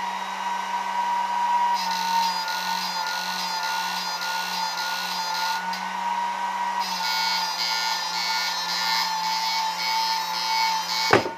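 Homemade battery-powered ultrasonic inverter running under load: its high-speed cooling fan whirring with a steady electronic whine, and a pulsing buzz from its flip-flop oscillator whose rhythm changes as the mixer knobs are turned. A sharp click just before the end.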